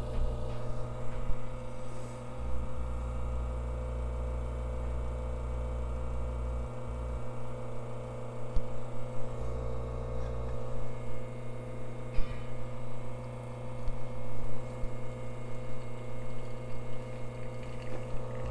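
Lelit espresso machine's pump humming steadily while an espresso shot is extracted.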